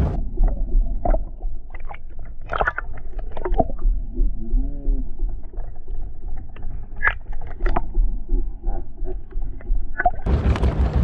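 Muffled underwater sound from a camera below the surface: a dull wash of water with scattered clicks and knocks, and a brief wavering hum about halfway through. About a second before the end it opens out to the open-air sound of wind and water.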